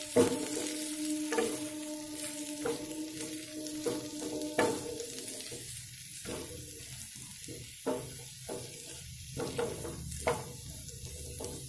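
Wooden spatula stirring and tossing shredded cabbage, potatoes and peas in a pan of hot oil: a soft sizzle with irregular scrapes and knocks of the spatula against the pan.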